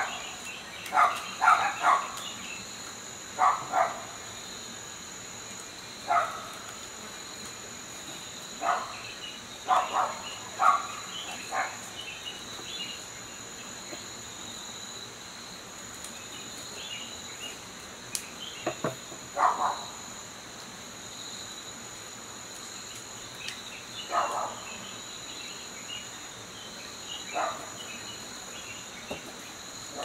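Steady high-pitched chirring of crickets, with a scatter of short scrapes from enamelled copper wire being pulled and pressed into the slots of a generator stator during rewinding.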